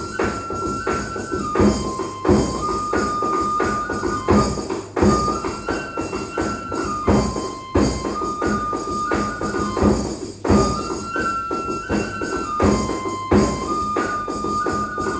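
Japanese kagura music: a bamboo flute playing held notes that step up and down in pitch over taiko drum strikes about once or twice a second, with a steady high shimmer above.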